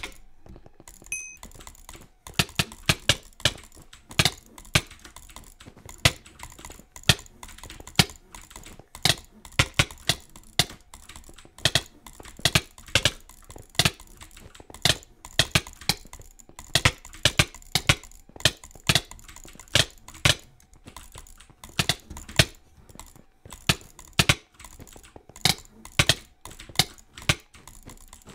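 Sharp clicking, key or button presses coming several a second in uneven runs with short pauses between them, starting about two seconds in.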